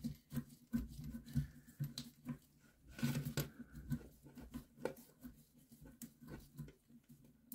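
Gloved hand handling and positioning a braided metal water-supply hose at a toilet shutoff valve: scattered light clicks, rustles and scrapes, busiest about three seconds in.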